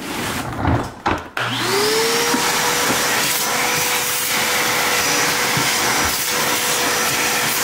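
A few handling knocks, then a Stanley wet/dry shop vacuum is switched on about a second and a half in. Its motor spins up with a rising whine that levels off, and it runs steadily while its hose sucks at the car's fuel pump opening to clear spilled gasoline.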